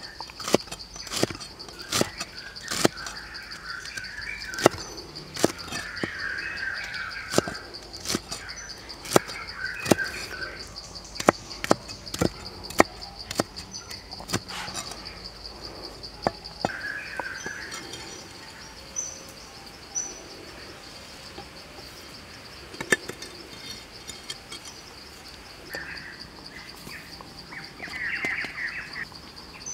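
Cleaver chopping red chillies on a wooden chopping block: sharp chops, roughly one a second, thinning out about halfway through. A steady high insect drone and bird chirps run behind, and near the end granules hiss briefly as they are poured into a wooden mortar.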